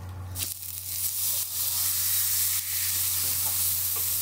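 Beef steak sizzling on the hot griddle plate of a charcoal grill, starting as the meat is laid down about half a second in and holding as a steady loud hiss.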